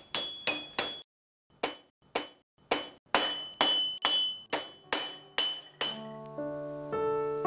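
Blacksmith's hammer striking hot iron on an anvil: sharp, ringing blows about twice a second, with a short pause about a second in. Piano music comes in near the end.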